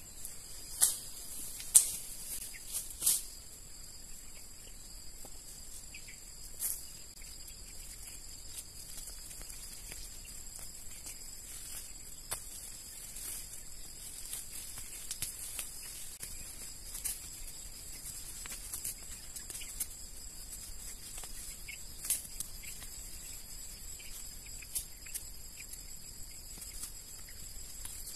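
Steady high-pitched insect chorus, with sharp rustles and snaps now and then as weeds are pulled up by hand, roots and soil included. The snaps are loudest in the first few seconds.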